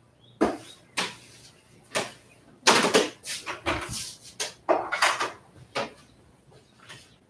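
Knocks, clatters and rustles of household things being handled and moved about while tidying a room: about a dozen sharp sounds in quick, uneven succession, busiest in the middle and tailing off near the end.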